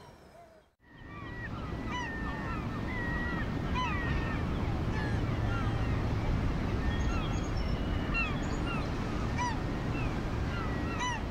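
Colony of herring and great black-backed gulls calling, with many short overlapping yelps and a few longer held calls, over a steady rush of surf. The sound fades almost to nothing and comes back about a second in.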